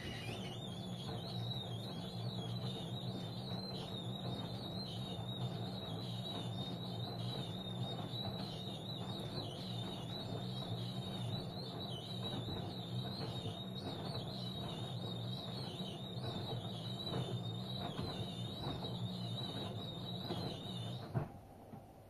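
LG DirectDrive front-loading washing machine running mid-cycle: a steady low hum with a high, wavering whine over it. It starts at once and cuts off abruptly about a second before the end.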